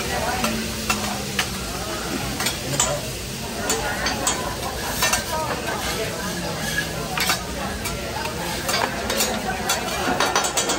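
Mixed vegetables sizzling on a teppanyaki flat-top griddle, with metal spatulas scraping and clacking against the steel plate as they are tossed. The sizzle is steady and the clacks come irregularly throughout.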